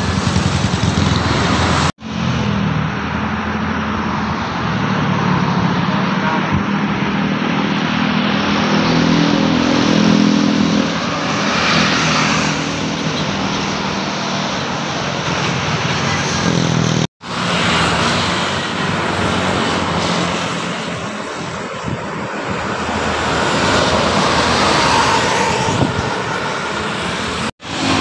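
Roadside traffic: cars, motorcycles and a large coach bus driving past, with a steady engine drone and rising and falling swells as vehicles go by. The sound breaks off abruptly three times and picks up again.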